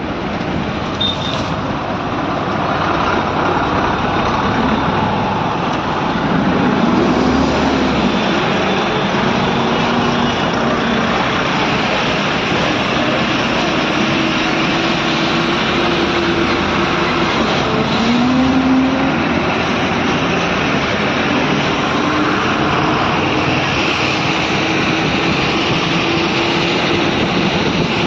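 Heavy traffic crawling in a jam: the diesel engines of trucks and a bus run close by over dense road noise. Engine notes rise twice, about a quarter of the way in and again past halfway, as vehicles pull ahead.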